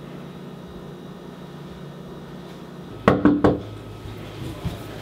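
A few quick knocks on a front door, bunched together about three seconds in, over a faint steady hum of room tone.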